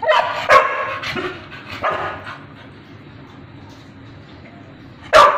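Labrador retriever barking in short single barks: two in quick succession at the start, another about two seconds in, and one more near the end.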